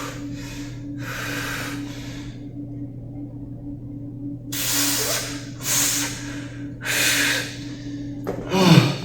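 A person breathing hard: a series of forceful breaths, six in all and each under a second, ending with a short falling grunt near the end. A steady low hum runs underneath.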